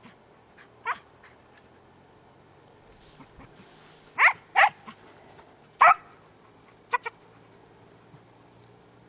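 Hunting dogs giving tongue in short, high yelps while working a hare's scent through scrub: one call about a second in, a close pair around four seconds in, a loud one near six seconds and a quick double at about seven seconds.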